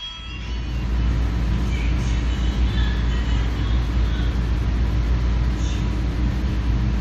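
Steady low rumble of a motor vehicle, engine and road noise, fading in over the first second and then holding even.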